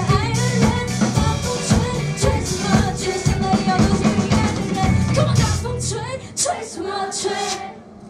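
Live band playing with a singer on microphone over drums and bass. About six seconds in the drums and bass stop, the voice carries on briefly over the ringing, and the song ends just before the close.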